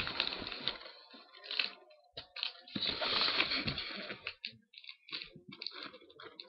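Hands working at a package to get it open: irregular scraping, crinkling and tearing of the packaging, with a longer rustling stretch about three seconds in.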